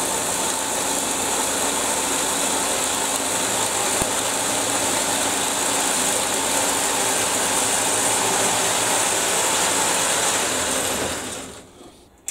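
Home-built 4x36 belt sander running steadily at speed on its newly remade roller bearings, loud and even. It is switched off near the end and quickly runs down.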